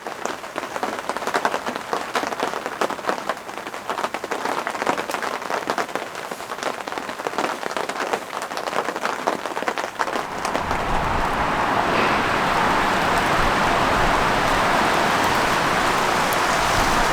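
Blizzard: wind-driven snow pelting a surface in dense, fast ticks. About ten seconds in, a steady, louder gust of wind rushes in, with low rumble from the wind buffeting the microphone.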